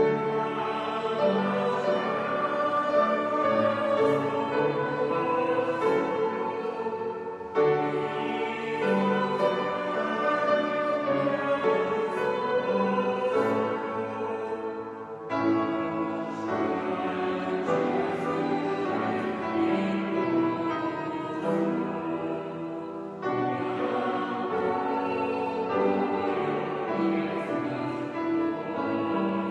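A choir singing a hymn in four phrases of about seven to eight seconds each, each phrase starting abruptly.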